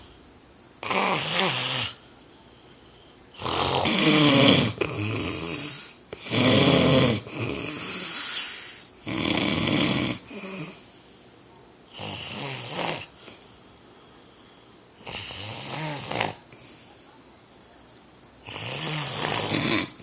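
A sleeping man snoring loudly: a run of snores about a second long each, some coming close together and others a few seconds apart.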